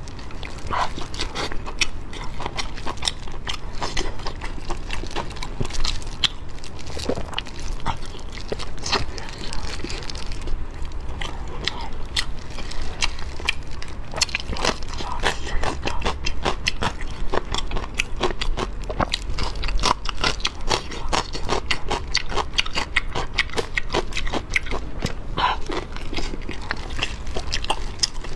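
Close-miked eating of soft, sesame-glazed braised meat off the bone: steady wet chewing, biting and lip smacking, a dense run of sharp smacks and clicks.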